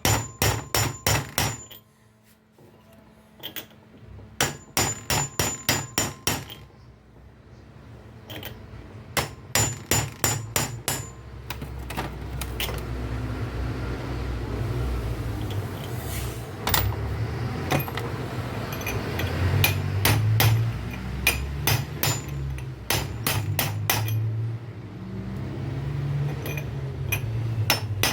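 Hammer striking metal in quick bursts of sharp, ringing blows, knocking a bearing into the alternator of a 2015 Renault Logan while it is being replaced. A low steady rumble sits underneath from about halfway through.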